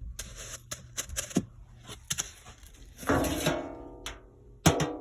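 Music: a strummed chord on a plucked string instrument rings out and dies away about three seconds in, and another follows near the end. Before it come a few light knocks and rustling.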